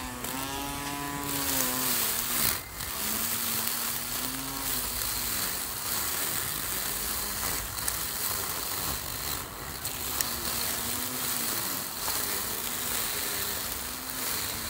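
Cordless battery string trimmer running and cutting tall grass, its spinning nylon line hissing through the blades. The motor's whine repeatedly dips in pitch and recovers as the head bites into the grass.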